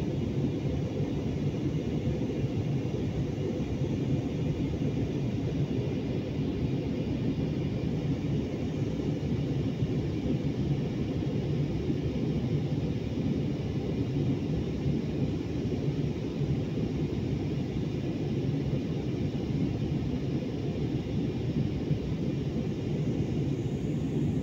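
Jet airliner cabin noise in flight: a steady, even low drone of engines and rushing air, heard from inside the cabin.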